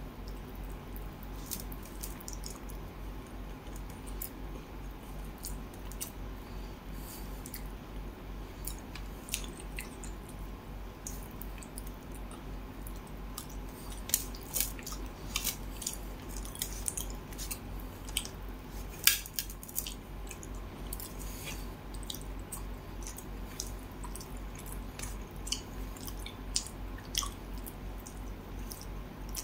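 Wet, squishy eating sounds of fingers picking fish flesh off the bones on a steel plate and of chewing, with many scattered sharp clicks and smacks over a steady low hum. One click a little past halfway is louder than the rest.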